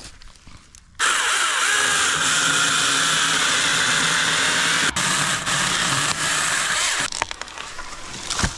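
Battery-powered 6-inch mini chainsaw starting about a second in with a steady high motor whine, cutting out for an instant a few seconds later, then stopping about two seconds before the end. A short thump near the end.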